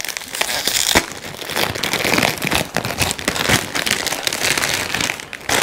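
A packaged croissant's crinkly plastic wrapper being pulled open and crumpled by hand: a dense run of sharp crackles, with a louder snap about a second in.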